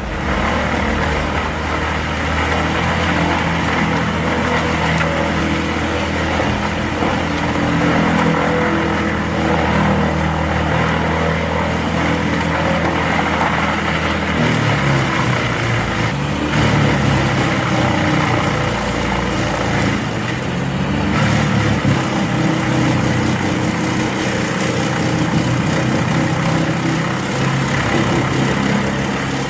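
Large whole-tree wood chipper running with a steady engine drone. The engine note shifts about halfway through.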